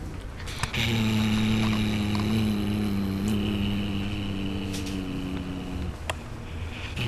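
Canadian Sphynx cat making a steady, low, droning growl-hum while it eats, held for about five seconds and starting again near the end, with a few sharp chewing clicks.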